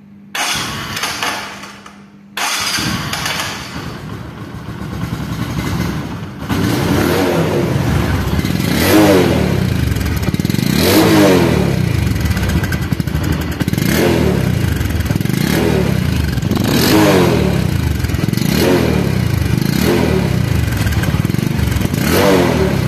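Bajaj Pulsar motorcycle's single-cylinder engine started on the electric starter, catching about two and a half seconds in, then idling. From about six seconds in, the throttle is blipped again and again, roughly every two seconds, so the engine note rises and falls in repeated revs.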